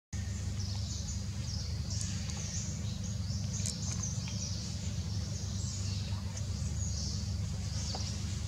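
Outdoor ambience: small birds chirping in repeated short high phrases over a steady low rumble.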